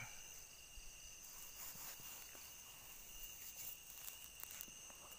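Faint, steady chirring of insects in two high, unbroken tones, with a few soft clicks or rustles.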